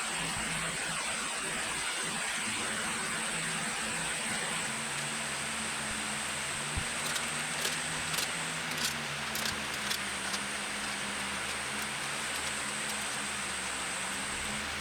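Steady hiss and low hum, with about eight light, sharp clicks from about seven to ten seconds in.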